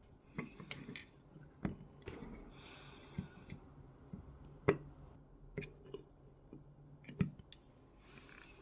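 Scattered small clicks and taps of 3D-printed plastic parts and small hardware being handled and fitted together at a workbench, with a brief scraping rub about three seconds in.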